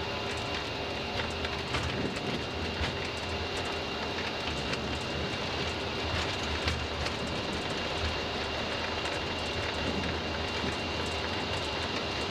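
Cockpit noise of an Airbus A340-300 accelerating down the runway at takeoff thrust: steady engine noise with a steady whine over a low rumble from the wheels, and scattered short knocks as the tyres run over the runway surface.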